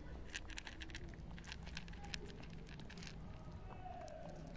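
A cat crunching dry kibble as it eats: many quick, irregular crisp clicks.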